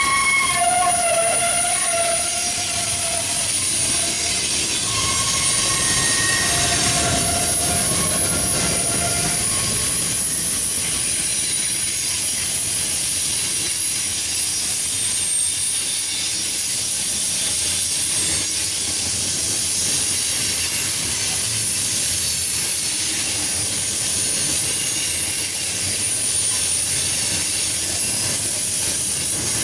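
Freight cars rolling past on a curve, their steel wheels squealing against the rail over the steady rumble of the train. A high-pitched squeal runs throughout, and lower squealing tones join it for the first several seconds before dying out about nine seconds in.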